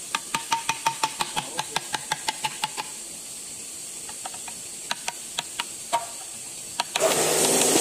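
Ratchet wrench clicking quickly and evenly, about five or six clicks a second, while oil pan bolts are spun out, then a few scattered clicks. About seven seconds in, a pneumatic impact wrench starts running loudly on the pan bolts.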